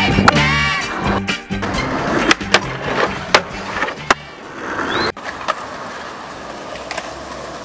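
Skateboard tricks over background music with a steady beat: sharp clacks of the board popping and landing on concrete. About five seconds in the music cuts out, leaving a skateboard's wheels rolling on pavement with a few light clacks.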